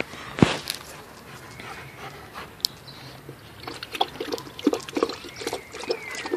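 A dog lapping water from a plastic tub, with a steady run of wet laps about three a second that starts a few seconds in. A single sharp knock just after the start is the loudest sound.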